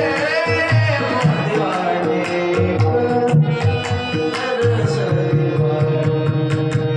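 Devotional kirtan music: a harmonium holding steady chords over tabla strokes, with a voice singing a wavering phrase in the first second and a regular beat of sharp strikes throughout.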